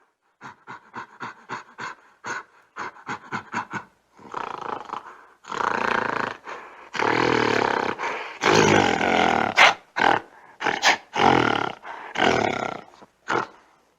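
Gorilla growling and grunting: a run of short rapid grunts, about four a second, then longer, louder growls from about four seconds in, breaking into shorter bursts near the end.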